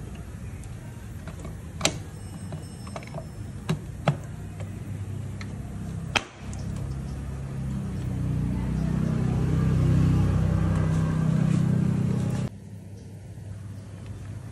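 Sharp metal clicks and knocks, about four, as the clutch cover is handled and seated on a Bajaj Pulsar NS200 engine casing. From about halfway through, a steady low hum swells up and stops abruptly near the end.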